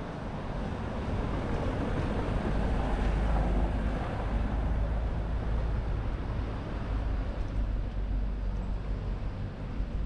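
A car driving along a cobbled street, its engine and tyre noise swelling from about a second in to a peak around three seconds, over a steady low rumble.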